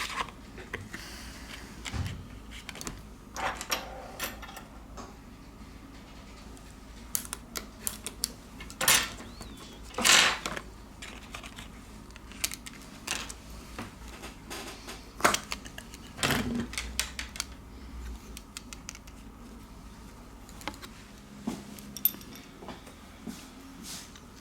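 Irregular light clicks and taps from handling an opened Nokia 5.1 smartphone and small repair tools, with a few louder knocks about nine, ten and fifteen seconds in.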